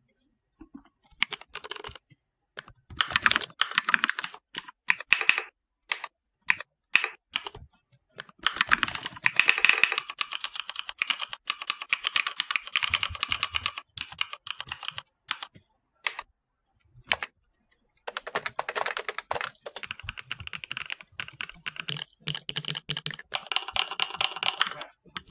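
Mechanical-keyboard keystroke clicks generated by the Mechvibes keyboard-sound program as keys are typed, coming in quick flurries with short pauses between.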